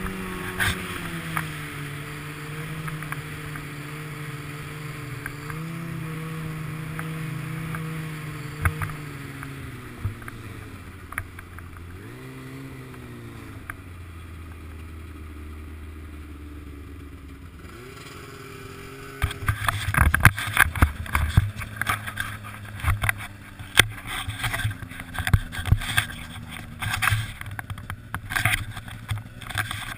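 Snowmobile engine running at a steady cruising pitch, then easing off about a third of the way in, with a short blip of throttle and a lower, slower run before picking up again. Past the halfway mark the engine note fades under loud, irregular knocks and rattles.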